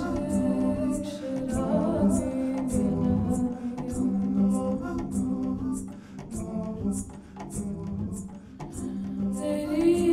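A woman singing long, held, slowly gliding notes into a microphone, with a double bass underneath. The singing thins out past the middle and swells back near the end.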